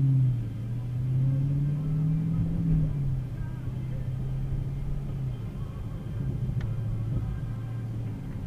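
A car's engine and road rumble while driving. The engine note rises and falls over the first few seconds, then holds steadier and lower.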